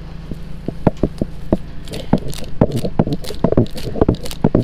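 Hay and net wrap being pulled by hand off a clover-grass silage bale: irregular sharp crackles and snaps, more frequent from about two seconds in, over a steady low hum.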